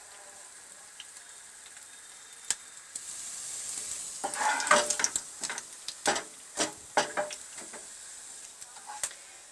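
Crushed coriander seeds and whole dried red chillies sizzling in hot ghee in a kadhai, a steady high hiss. From about four seconds in a utensil stirs the spices, scraping and clicking against the pan several times.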